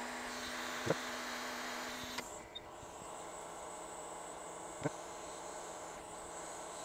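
Steady hiss of bench equipment with a faint high whine and a low hum, broken by two short clicks about one and five seconds in. The hum drops a little in pitch just past two seconds in.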